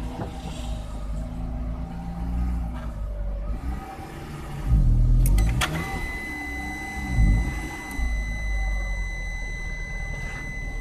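Fiat 1.4 car engine running unevenly, its pitch sagging and picking up again twice with louder surges about halfway through. A few clicks follow, and then a steady high electronic tone sounds over the engine.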